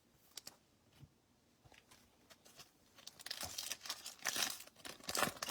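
Trading card pack wrapper being torn open and crinkled by hand. A few light ticks come first, then the wrapper crackles densely from about three seconds in.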